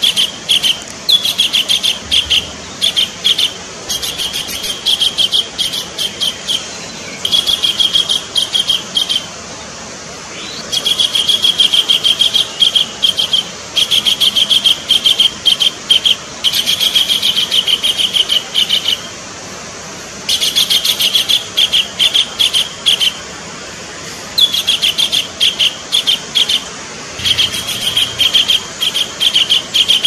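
Collared kingfisher calling: loud, rapid series of repeated harsh notes in bouts of about two to three seconds, with short pauses between them, repeated over and over.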